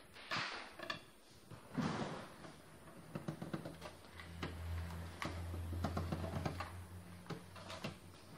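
Small parts and screws handled on a copier fuser unit's casing during disassembly: a run of light clicks and knocks, with two brief scraping rustles near the start. A low steady hum sounds for about three seconds in the middle.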